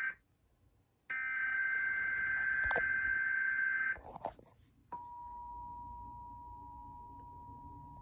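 Emergency Alert System test tones through a TV speaker: a burst of shrill, warbling digital header data tones cuts off, and after about a second's gap a second burst plays for about three seconds. About five seconds in, the steady two-tone EAS attention signal begins and holds.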